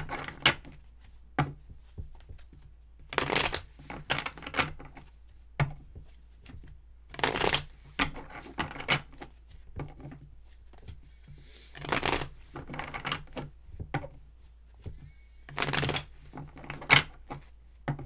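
A deck of tarot cards being shuffled by hand in repeated bursts, about five shuffles of a second or two each with short pauses between them.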